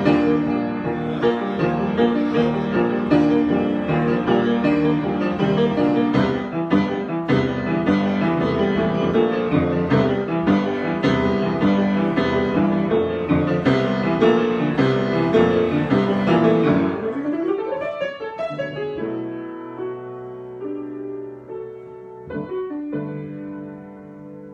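Solo piano improvisation: busy, many-note playing that thins out a little past two-thirds of the way through into quieter, sustained chords.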